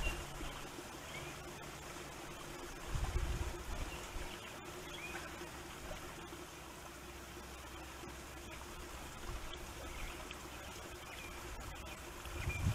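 Wind buffeting a trail camera's microphone in low rumbling gusts, one about three seconds in and another near the end, over a steady faint hiss of wind.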